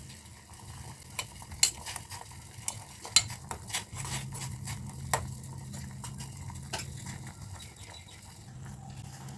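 A metal spoon stirring in a pot of boiling herbal decoction, clinking against the pot now and then at irregular intervals, with a low steady hum underneath.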